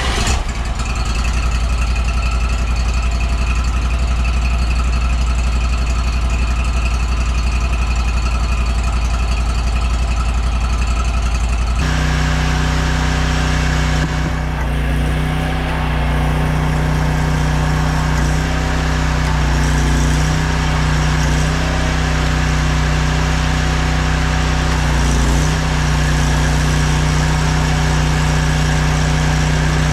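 Gas engine of a pressure washer running steadily. About twelve seconds in its sound changes abruptly to a different steady note.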